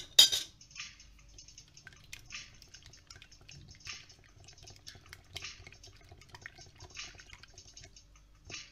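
A sharp click about a quarter second in, then a whisk beating a thin egg-and-milk mixture in a glass bowl: faint, irregular wet swishes.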